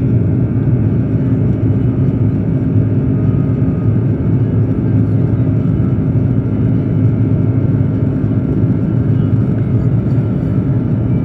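Steady low rumble inside the passenger cabin of an Airbus A330-200, from its engines and airflow, even and unbroken.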